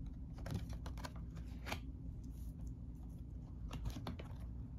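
Stiff map tiles being handled and laid down on a wooden table: scattered light clicks and taps.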